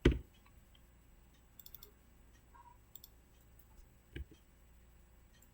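A few scattered clicks from a computer mouse and keyboard, with a louder knock right at the start and another about four seconds in.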